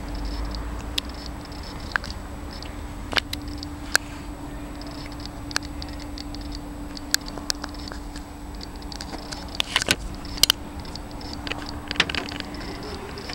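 Light clicks and rattles scattered through, with a short cluster of rattles about ten seconds in, over a steady low hum.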